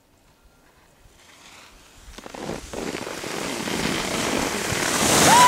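Skis hissing and scraping over packed snow as a skier comes downhill toward the microphone, growing steadily louder, with wind on the microphone. A short rising-and-falling tone sounds right at the end.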